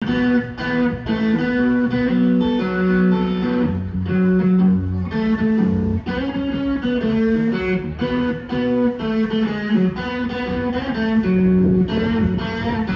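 Stratocaster-style electric guitar played through an amplifier: slow blues lead lines of held single notes, some of them bent.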